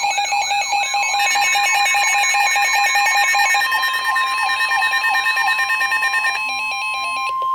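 Weather alert radios sounding their alarm for a NOAA Weather Radio severe thunderstorm warning: several overlapping electronic beeping, chirping and warbling patterns repeating a few times a second. About halfway in, the steady NOAA 1050 Hz warning tone joins them. Most of the beeping stops just before the end, leaving the steady tone.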